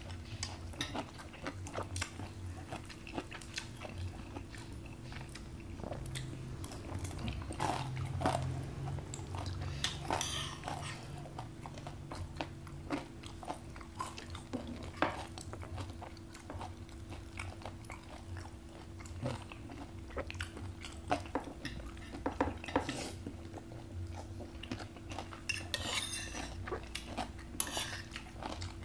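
Metal spoons and forks clinking and scraping on plates in many short, irregular clicks, mixed with chewing and crunching of food. A faint steady hum runs underneath.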